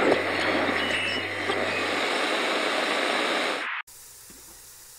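A loud steady rushing noise with a low hum beneath it for the first two seconds, cutting off abruptly nearly four seconds in.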